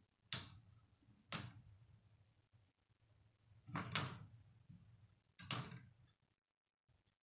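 Plastic K'nex model helicopter rotor struck by hand to spin it: four sharp plastic clacks, the loudest a cluster about four seconds in, each followed by a short rattle of the spinning plastic parts.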